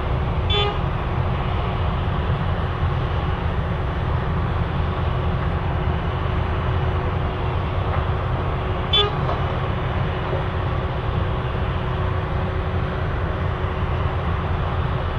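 Heavy road-milling machine and the dump truck it loads running with a steady low rumble as old runway asphalt is milled. Two short horn toots sound over it, one about half a second in and another about nine seconds in.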